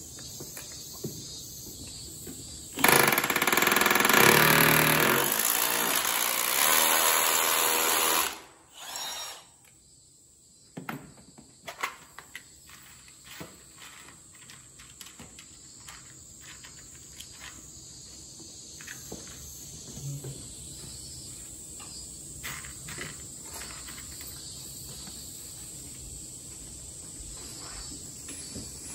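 A power drill runs for about five seconds, then briefly again, followed by scattered light clicks and knocks of tools and parts being handled.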